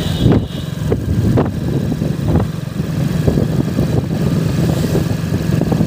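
Motorcycle engine running steadily while the bike is ridden along a road, with a few short thumps in the first two and a half seconds.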